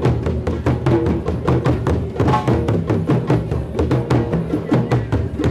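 Drum circle of several hand drums playing together in a fast, steady beat.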